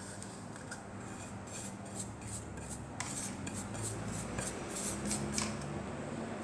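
A spoon scraping and tapping against containers as spice powders are added to a mixer-grinder jar: a run of light scrapes and clicks that grows busier about halfway through.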